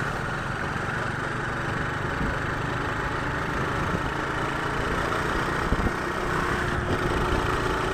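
Motorcycle cruising along a highway: steady engine drone under a constant rush of wind and road noise.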